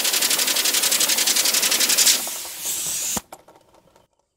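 Compressed air hissing hard from an air nozzle as it spins a fidget spinner at high speed, with a fine fast pulsing in the hiss. The hiss changes about two seconds in and cuts off suddenly with a single sharp crack about three seconds in. Only a few faint clicks follow.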